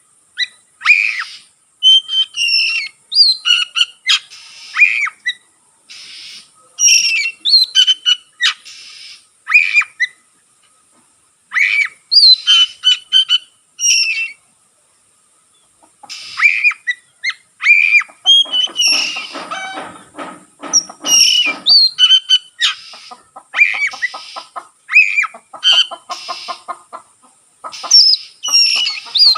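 Oriental magpie-robin singing: loud, sharp whistled phrases with short pauses between them. About two-thirds of the way in, and again a little later, the song breaks into fast, harsh rattling chatter.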